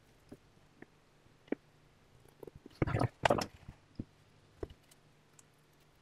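Handling noise from gluing plywood cabinet parts on a workbench: scattered light clicks and taps, with two louder scraping bursts about three seconds in.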